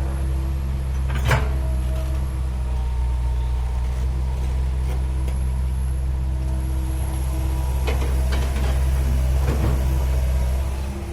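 Heavy diesel engine of earthmoving machinery running at a steady pitch. A sharp metal clank comes about a second in, and a few lighter knocks come between eight and ten seconds in.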